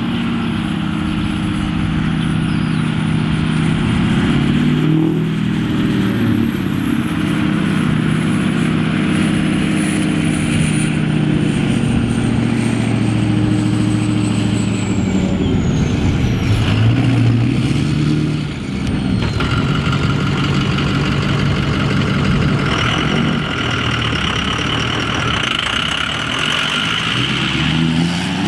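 Ford 6.0 Power Stroke V8 turbo-diesel truck engine running and revving, its note rising and falling several times, with a thin high whistle drifting in pitch above it.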